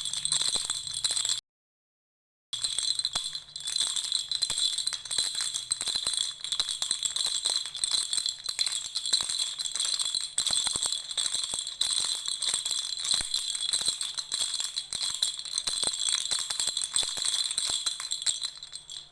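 Lollipop-shaped baby rattle shaken without pause: a dense, fast rattle with steady high ringing tones. It cuts out for about a second, a second and a half in, then carries on.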